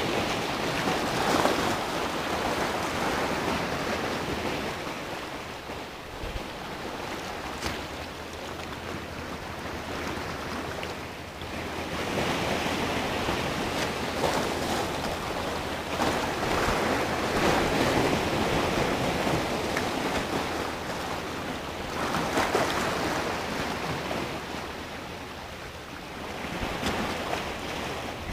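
Sea waves surging and breaking over low rocks. The wash swells and eases every few seconds.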